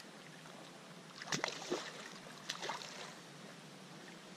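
Creek water splashing and sloshing around a landing net as a hooked steelhead is brought to it, in short splashes about one and a half and two and a half seconds in, over a steady low wash of water.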